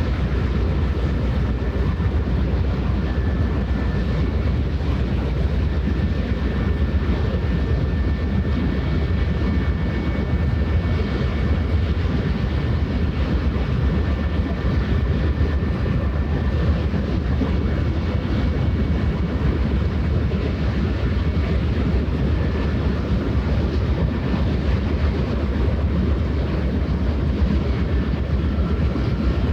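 Steady low drone of a passing ship's engine, with a few faint high steady tones over it.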